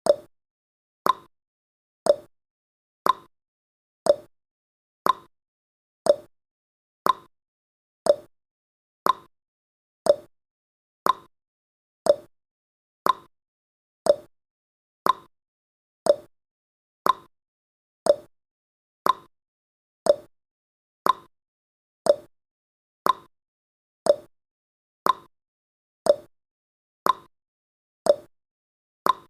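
Countdown timer's clock-tick sound effect: a sharp tick once a second, alternating a higher tick with a lower tock.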